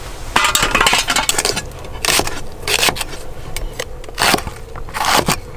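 Cleaver slicing long green chili peppers on a wooden cutting board: a series of uneven chopping strokes, several close together in the first second and a half, then single strokes every second or so.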